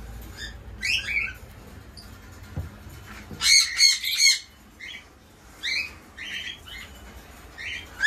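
Caged parrots calling: short squawks and chirps in scattered bursts, the loudest a quick run of harsh squawks about three and a half seconds in.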